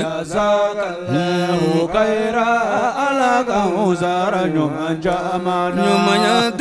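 A man's voice chanting unaccompanied in a melismatic Islamic style, with long held notes and winding, ornamented runs.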